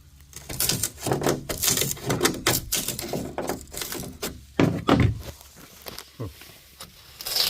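Hand chisel scraping and knocking against a fiberglass boat transom, working loose a thin skin of plywood that did not bond to the glass. A fast run of scrapes and knocks, then a few sparser knocks near the end.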